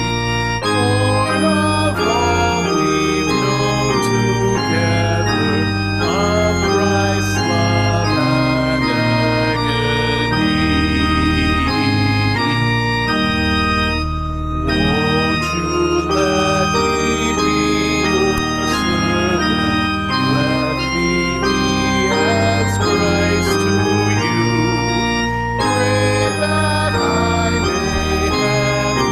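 Organ playing a hymn in sustained chords, with a man's voice singing along. The music drops out briefly a little after halfway, then carries on.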